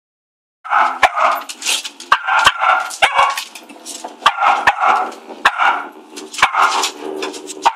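Cavalier King Charles spaniels barking over and over, starting about half a second in, with sharp clicks and knocks between the barks.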